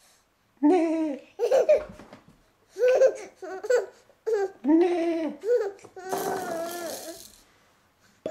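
A baby babbling and laughing in a string of short, high-pitched vocal bursts, with a longer, breathy one about six seconds in.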